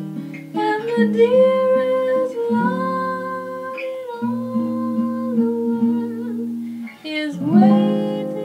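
Guitar accompaniment playing a short instrumental break in a song: chords plucked every second or so under a held melody line, with a fresh strummed chord near the end.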